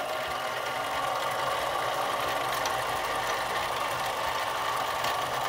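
Central Machinery 7x12 benchtop mini lathe running at a steady pitch while a 5/32 in drill in the tailstock is fed into the spinning steel tube, redrilling a bore that came out too tight.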